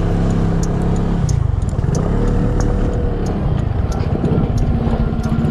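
Motor scooter engine running on the road; about a second in its pitch drops as it slows, then climbs again as it picks up speed and settles into a steady drone.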